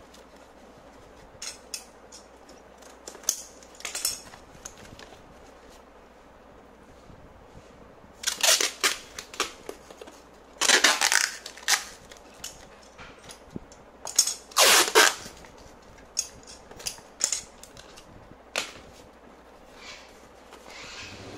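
Packing tape pulled off the roll in three loud tearing strips of about a second each, with lighter knocks and clicks of cardboard being handled between them.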